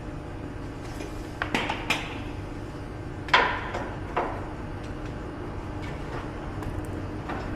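Metal tools and parts clinking and clanking as they are handled: a few light clinks about a second and a half in, a louder clank a little over three seconds in, and another a second later, over a steady low hum.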